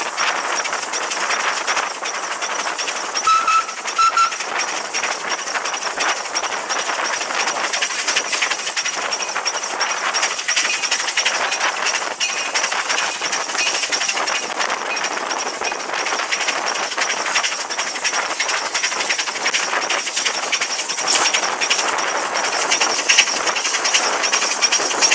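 Rabas steam traction engine running under way: a rapid, even clatter and beat from the engine and running gear over a steady hiss of escaping steam.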